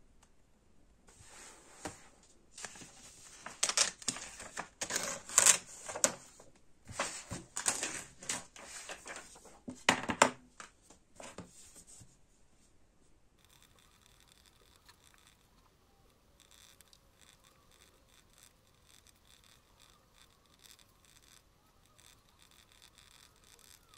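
Pen writing on a pad of sticky notes: quick, scratchy strokes of the tip across the paper, loud for the first ten seconds or so, then much fainter.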